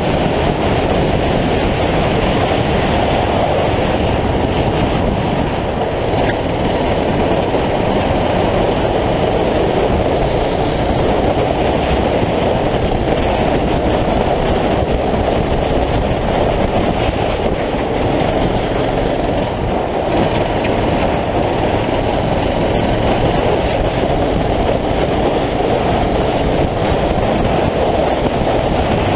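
9 hp racing kart engine running hard under load on track, heard from the kart itself as a loud, steady drone.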